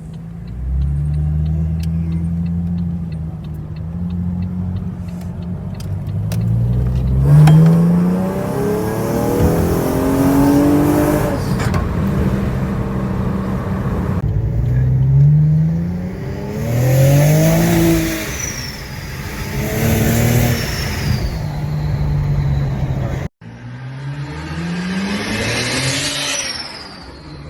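A car engine accelerating hard and revving up through the gears: the pitch rises, drops at each shift, then rises again, several times over in separately cut clips.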